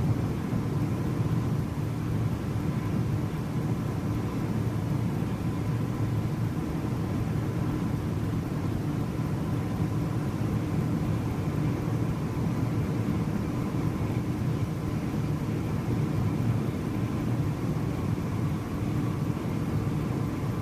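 A steady low mechanical rumble with a faint constant hum, unchanging throughout.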